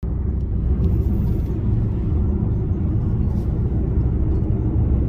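Steady low rumble of tyre and road noise heard from inside a car's cabin while driving on a motorway.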